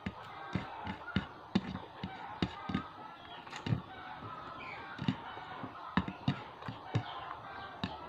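Close-up eating sounds: irregular wet smacks and clicks of chewing and lip-smacking, about two a second, as pork and rice are eaten.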